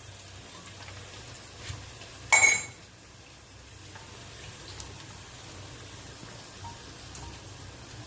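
Onions frying in oil with a faint steady sizzle. About two and a half seconds in comes a single loud metallic clank with a ringing tone, and a few light ticks follow.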